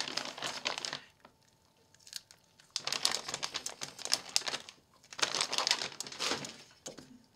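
Plastic beef jerky bag crinkling as it is handled, in three bouts of crackling with short pauses between.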